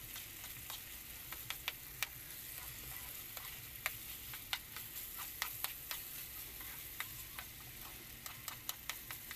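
Ground pork giniling with diced carrots and potatoes sizzling in a pan as it is stirred, a steady hiss with sharp, irregular clicks of the utensil against the pan.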